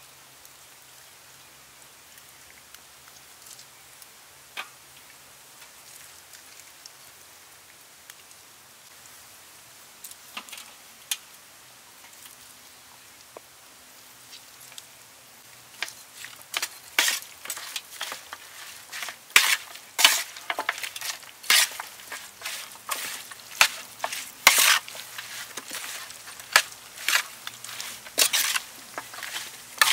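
Raw chicken feet being tossed with seasoning in a steel tray with a metal spoon: wet squelching and sharp clicks of the spoon against the tray, starting about halfway through. Before that, only a faint hiss and a few soft ticks.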